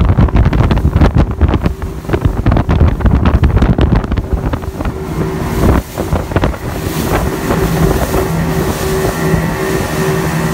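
Outboard-powered fishing boat running at speed, with heavy wind buffeting the microphone and water rushing past the hull. The buffeting is strongest in the first half. About halfway in, steady background music comes in over the run.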